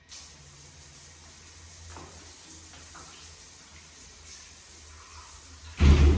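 Water running from a tap into a sink in a steady, even stream that starts abruptly, with a loud thump lasting about half a second near the end.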